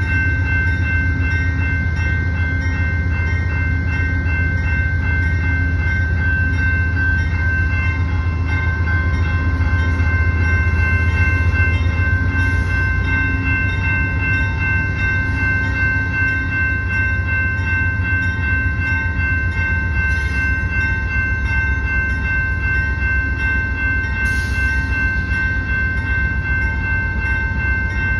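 Grade-crossing warning bell ringing steadily over the low rumble of an Amtrak diesel locomotive approaching slowly. The rumble swells a little about ten seconds in.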